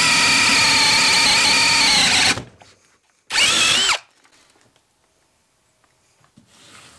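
Ryobi P251 brushless cordless drill in drill mode boring a spade bit through a wooden board: a steady motor whine whose pitch sags slightly under load, cutting off about two and a half seconds in as the bit breaks through. A second later the drill revs briefly, its pitch rising then falling, followed by faint rustling.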